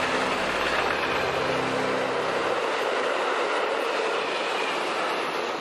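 Freight train passing close by, its wagons rumbling and rattling over the track in a steady dense noise. The deeper rumble drops away about halfway through as the last wagons go by.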